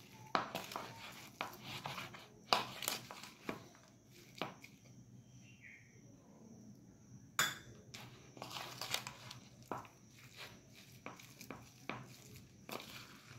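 A steel spoon stirring a thick semolina-and-curd batter with chopped vegetables in a bowl: irregular soft scrapes and knocks of the spoon against the bowl, one louder knock about halfway through.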